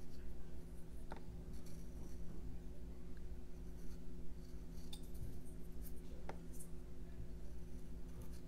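Small carving knife making fine cuts in a jelutong block: quiet scratching strokes with a few sharp clicks, over a steady low hum.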